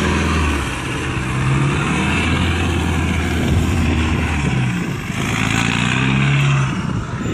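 1994 Land Rover Discovery's 2.5-litre four-cylinder turbodiesel working hard as it climbs a soft sand dune, the revs rising and falling several times.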